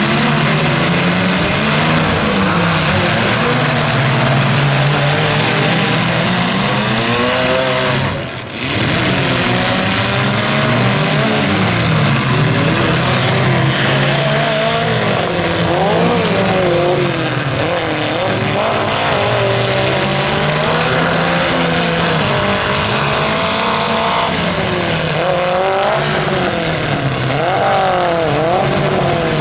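Several compact demolition-derby cars' engines revving up and down at once, each rising and falling in pitch on its own, over a dense noisy wash. The sound briefly dips about eight seconds in.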